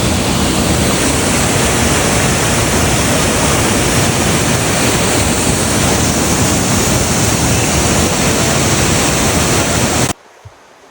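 Waterfall rushing, a loud, even roar of falling water that cuts off abruptly about ten seconds in.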